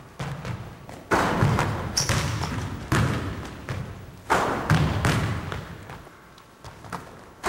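Basketball bouncing on a hardwood gym floor: loud thuds about once a second, each echoing in the large empty gym.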